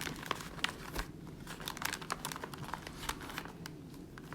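Irregular crinkling and crackling of a potato chip bag and its paper cover being handled as the glued ends are pressed together.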